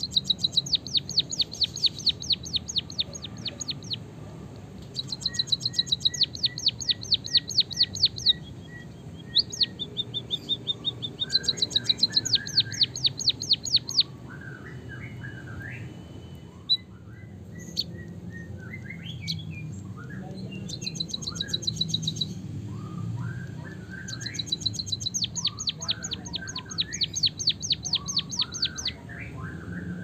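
White-headed munia singing canary-style: four bouts of fast, even, rolling trills of high notes, about eight a second, about a second in, near five seconds, near eleven seconds and again after twenty-four seconds. Between the trills come softer, lower, scattered chirps.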